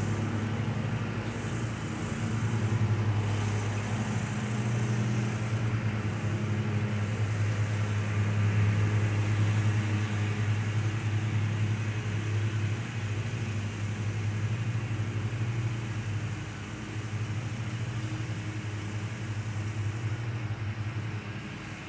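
Zero-turn lawn mower engines running steadily at mowing speed, a low even hum that swells and fades as the mowers move about, dropping off somewhat after about sixteen seconds.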